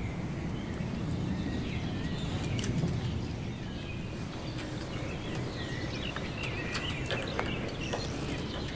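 Outdoor marina ambience: a steady low rumble with birds chirping now and then, more often in the second half, and scattered light clicks and knocks.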